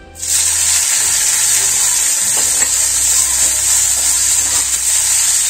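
Chopped Chinese chives hitting hot ghee in an iron kadai, sizzling loudly from the moment they drop in. A spatula stirs them through the pan, with a few faint scrapes.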